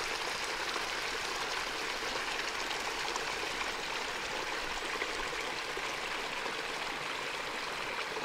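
Mountain creek running steadily, an even rush of water with no breaks.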